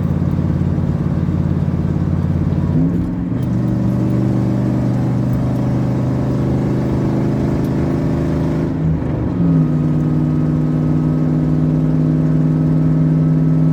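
A 1998 Dodge Dakota's 318 (5.2-litre) V8 running under way, heard from inside the cab. The engine note is steady, with shifts in pitch about three seconds and about nine seconds in.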